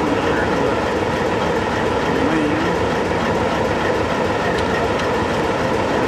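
Alco C420 diesel locomotive's engine running steadily, a loud even rumble close by.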